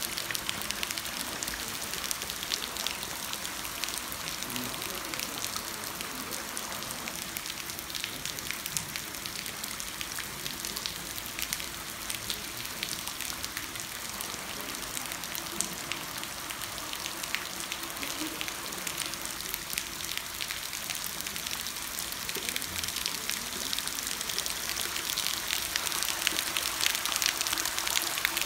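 Rain falling on wet stone flagstones: a dense, steady patter of drops that grows heavier near the end.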